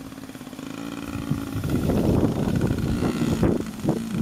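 Small children's dirt bike engine running, growing louder as the bike passes close by, rough and uneven at its loudest, then dropping off near the end as it rides away.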